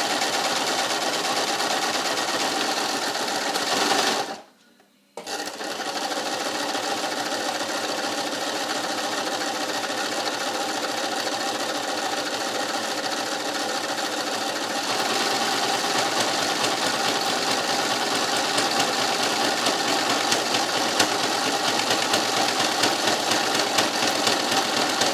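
Brother domestic electric sewing machine running steadily as it stitches fabric, with the rapid chatter of the needle. It stops for under a second about four seconds in, then starts again and runs a little louder from about fifteen seconds in.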